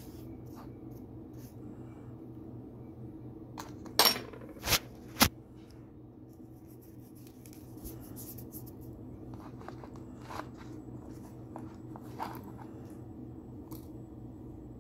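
Metal spoon knocking and scraping on a dish while spreading sugar and sesame seeds on buttered bread: three sharp clinks close together about four to five seconds in, then softer scrapes and ticks, over a steady low hum.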